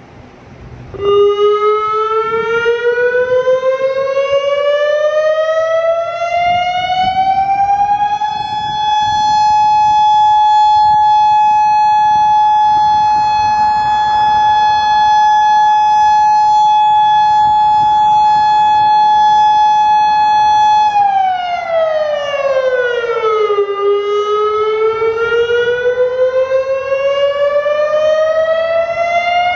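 Federal Signal Modulator 6048 electronic warning siren sounding a test tone. It starts suddenly about a second in and rises slowly in pitch. It then holds a steady high tone for about thirteen seconds, drops in pitch over a few seconds, and begins rising again near the end.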